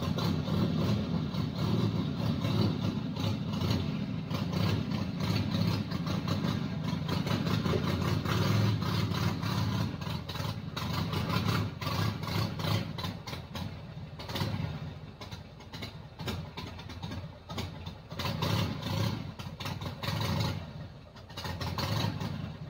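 Custom chopper motorcycle's engine running as the bike is ridden slowly up onto a trailer. It is louder for the first dozen seconds or so, then quieter with uneven rises and falls.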